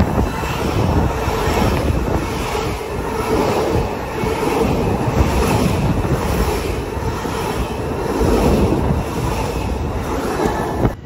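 Long Island Rail Road commuter train running past close by: a loud, steady rumble and rush of wheels on rail, with a faint regular beat running through it.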